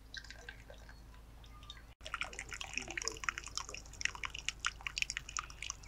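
Hot water running from a samovar's tap into a small pear-shaped tea glass, trickling and splashing. Faint at first, it grows louder and busier from about two seconds in as the stream fills the glass.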